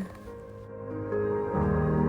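Soft ambient background music: sustained, held chords swelling in, growing louder partway through.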